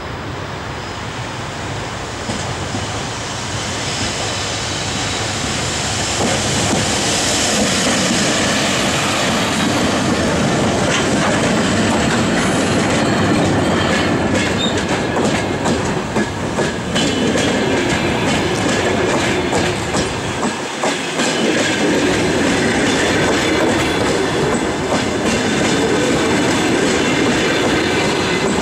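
A Škoda-built ChS8 two-section electric locomotive and its passenger train draw near, getting louder for several seconds, then pass close by. The coaches then roll past steadily, their wheels clicking rhythmically over the rail joints.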